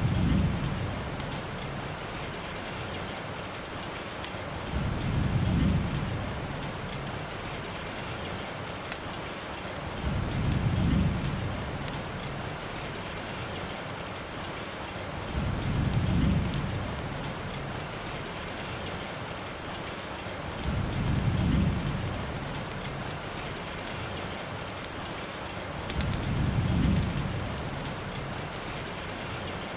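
Steady rain, with a low rumbling swell that rises and fades about every five seconds, six times.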